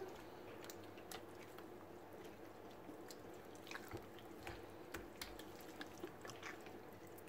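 Hands massaging a thick chermoula marinade into a whole raw chicken in a glass bowl: faint, scattered wet squelches and small smacks.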